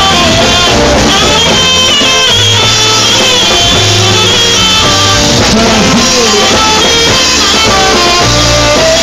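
Loud live band music: a saxophone playing the melody over a bass line and drums.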